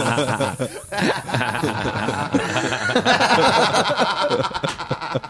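Several men laughing and chuckling together in short overlapping bursts, trailing off near the end.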